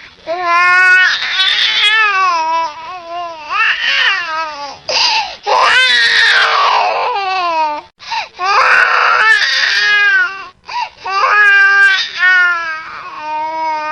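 Baby crying: a run of loud wails, each one rising and falling in pitch, with short gasps for breath between them.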